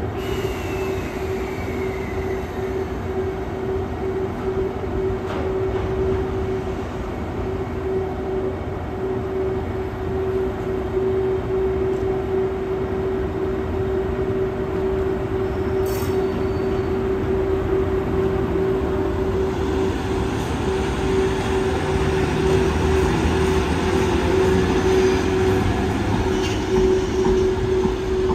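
EF81 electric locomotive pulling out with a container freight train, running with a steady hum. The rumble and clatter of wheels on the rails grows louder in the second half as the container wagons roll past.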